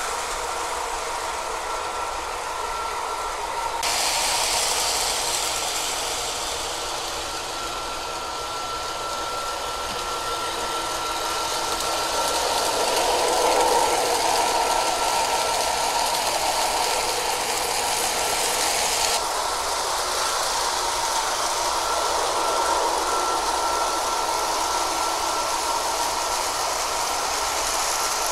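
O-scale model train running on its track: a steady rattle of wheels on rail with a thin, steady whine from the locomotive's motor. It is loudest about halfway through as the train passes close by.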